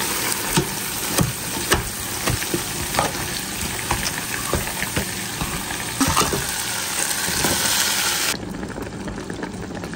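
Food sizzling as it fries in a pot, with irregular knocks and scrapes from stirring. The sizzle drops off sharply a little after eight seconds in.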